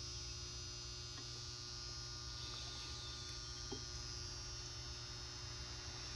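Steady low electrical hum, with one faint click about three and a half seconds in.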